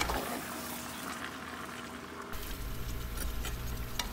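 Goat meat and spice paste cooking in a pot over a gas flame: a faint steady sizzle over the burner's low rumble, with a few light scrapes of a spatula mixing the meat in the second half.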